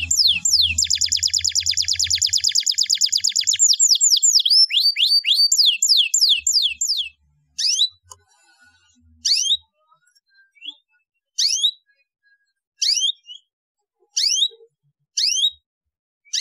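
Domestic canary singing: quick runs of repeated falling whistled notes, with a fast rolling trill in the first few seconds. From about seven seconds in, the song breaks into short separate phrases of falling notes every second or so.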